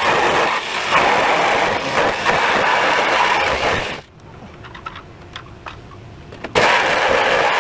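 Power tool cutting through a sheet-metal door panel, a loud steady grinding noise. It stops about four seconds in and starts again about two and a half seconds later.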